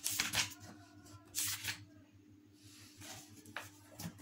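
Sheets of paper rustling in two short bursts in the first two seconds, then a couple of light ticks near the end, over a faint steady hum.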